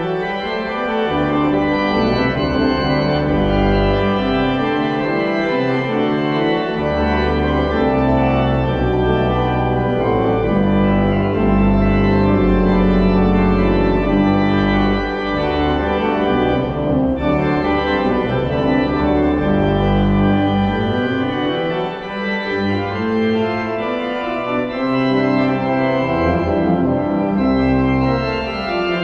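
Church organ playing the postlude: full sustained chords over deep pedal bass notes, moving from chord to chord every second or two.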